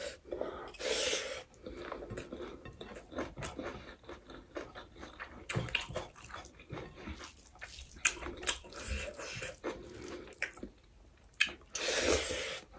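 Close-miked eating by hand: chewing and mouth smacks, with fingers working rice on a plate. There is a louder noisy burst about a second in and another near the end, as a handful of rice goes into the mouth.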